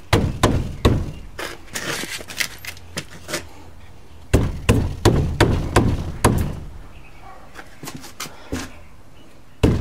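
Wooden cabinet part knocking and bumping as it is forced into a too-tight opening in a wall: a run of sharp knocks and thuds, with a louder flurry about four seconds in.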